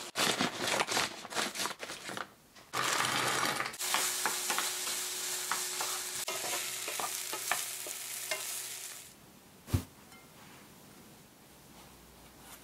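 Scissors snipping and crinkling a plastic food pouch, then food tipped into a hot oiled frying pan sizzling loudly as a wooden spatula stirs it, with small scraping ticks. The sizzle dies down about nine seconds in, followed by a single thump.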